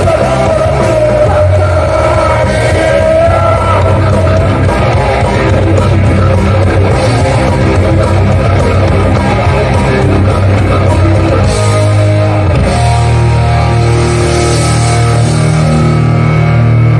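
A hardcore band playing live and loud: distorted guitars, bass and drums. About three-quarters of the way through, the riff changes to steadier held low notes.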